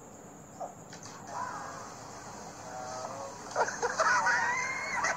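A high-pitched voice making long, wavering cries that grow louder over the last second and a half.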